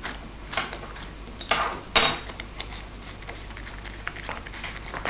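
Small steel fittings of a wooden band saw guide block (barrel bolt, washers, nut) clicking and clinking as the block is handled and taken apart. The loudest is a sharp metallic clink about two seconds in that rings briefly.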